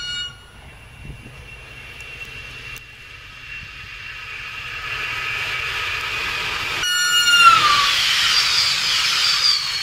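PKP Intercity passenger train approaching and passing close by, its rolling noise building over several seconds. About seven seconds in a short horn note sounds and drops in pitch as it goes by.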